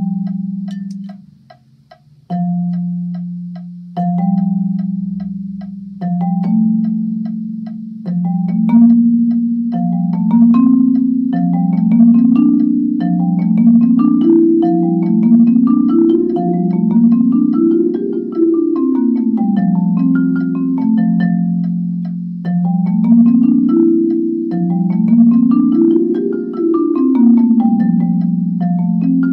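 Marimba played with yarn mallets: rolled notes in the low register, a few slow single pitches at first, then overlapping notes stepping up and back down in repeated rising and falling runs like a practice scale.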